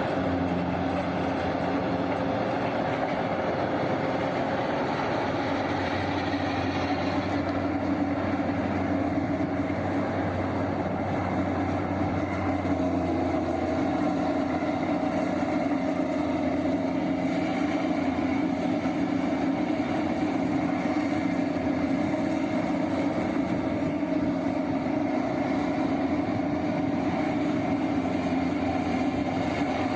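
Liebherr hydraulic mining excavator's diesel engine running steadily under working load, a continuous drone whose pitch shifts slightly about twelve seconds in.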